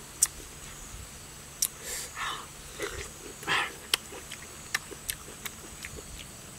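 A fruit slice dabbed and pressed into chili-salt paste in a stone mortar, with scattered sharp clicks and a few short breathy puffs of breath.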